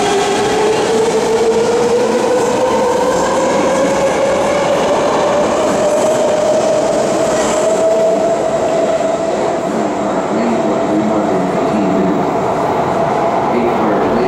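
BART subway train pulling out of an underground station: the propulsion motors' whine climbs steadily in pitch over the first several seconds as the train gathers speed, then levels off, over the rumble of the wheels on the rails.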